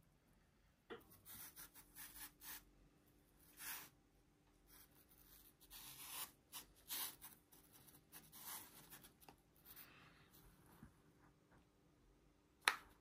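Quiet handling noises: hands rubbing and sliding over objects in a series of soft scrapes and rustles, then one sharp click near the end.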